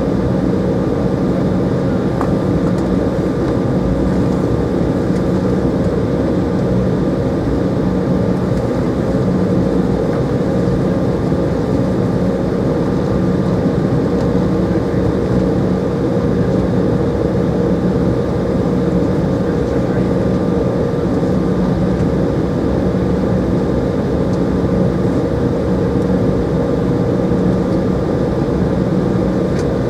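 Cabin noise of an Embraer 190 taxiing, its GE CF34 turbofans at low taxi power heard from a window seat beside the wing: a steady drone with a few steady hums.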